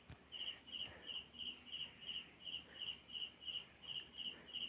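A cricket chirping steadily, about three short chirps a second, each a quick trill.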